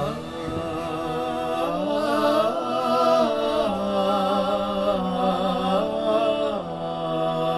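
A man's voice chanting the sela, the Islamic announcement of a death, in long held notes with wavering ornaments, the pitch stepping to a new note every second or two.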